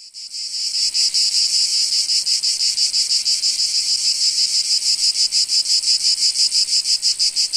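Loud insect chorus: a dense, high-pitched pulsing chirr of about six or seven pulses a second, fading in over the first second and then holding steady.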